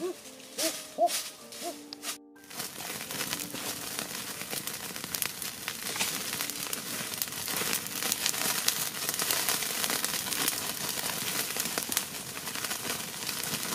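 Open wood fire crackling and popping with dense sharp cracks, starting about two and a half seconds in after a brief break. Before that, a few short hooting calls.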